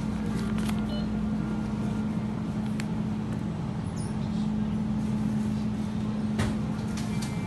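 Convenience-store counter ambience: a steady low hum from store equipment, with a few light clicks and paper rustles as a parcel slip and banknote are handled.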